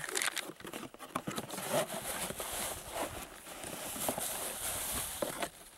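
Cardboard mailing box and paper being handled: irregular rustling, scraping and light taps as the box is tilted open and paper is pulled out.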